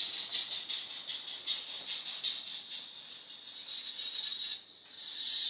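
Model steam locomotive running on a model railway with a steady hiss of simulated steam, and a brief thin high squeal a little before the end.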